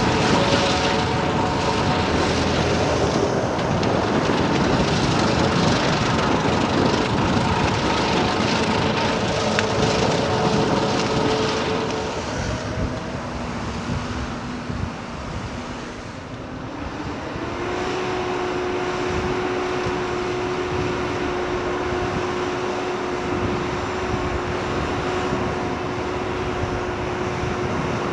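Diesel engines of heavy earthmoving machinery running under load, a steady drone with several humming tones. The sound eases off about twelve seconds in, then rises into a new steady, higher whine from about seventeen seconds.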